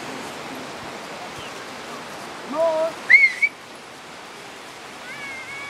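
A person whistling to call dogs: a loud rising whistle about three seconds in, just after a short shouted call, and a second, steadier whistle near the end. The steady hiss of surf runs underneath.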